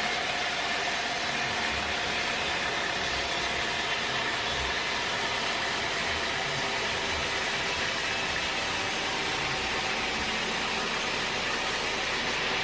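Sawmill machinery running steadily: an even mechanical noise with a faint steady hum.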